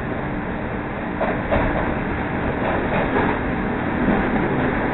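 Chicago 'L' rapid-transit train running at speed, heard from inside the car: a steady rail rumble with a few short clatters from the wheels and track, about one to three seconds in.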